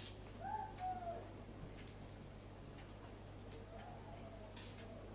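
Small metal clicks of a screwdriver working the little receiver screws out of a Ruger 10/22, a handful of separate ticks. Two short squeaks that rise and fall in pitch, one about half a second in and a fainter one near the end.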